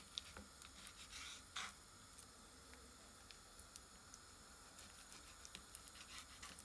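Faint food-preparation handling sounds: a few scattered light clicks and two short scrapes about a second in, over a steady hiss.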